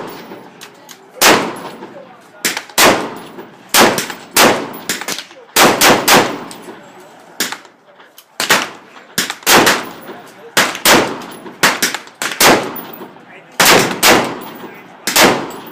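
AR-15 rifle fired semi-automatically in a long, uneven string of about twenty shots, roughly one every half second to second, each shot followed by a short echo.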